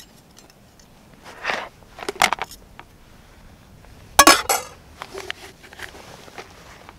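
Folding spork and SOTO Navigator cook pots clinking and knocking against each other as the gear is handled. There are a few light knocks, then the loudest clatter about four seconds in as the spork goes into a pot, and more small knocks after it.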